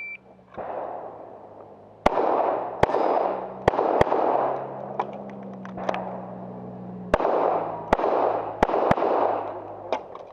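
A shot timer's start beep, then handgun shots fired at a practical shooting stage. The shots come in quick groups of two or so, about eight loud ones with short pauses between the groups, and each leaves an echo hanging across the range.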